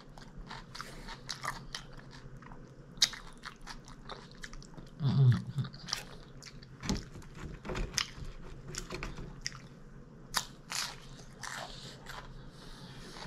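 A person eating up close to the microphone: biting and chewing with crunches and wet mouth clicks all the way through, and a short hummed "mmm" about five seconds in.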